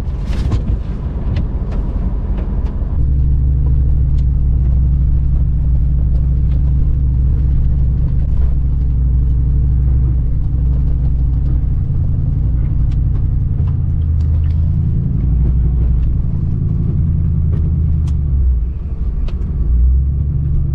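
Truck engine and tyre noise heard from inside the cab while driving a wet forest road: a steady low rumble that grows louder about three seconds in, with scattered light ticks over it.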